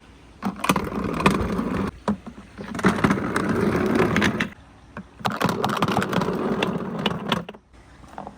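Balls rolling down a wooden marble-run track in three passes, each a rumble dotted with clicks where they strike joints and edges.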